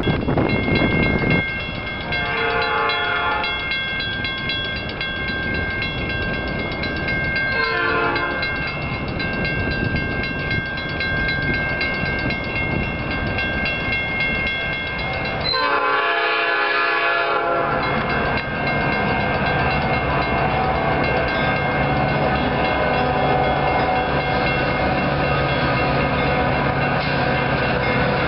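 Metra F40PH diesel locomotive approaching: its air horn sounds three times, the last blast the longest, over a steadily ringing bell, then the engine's steady drone takes over as it draws near. Wind on the microphone at the very start.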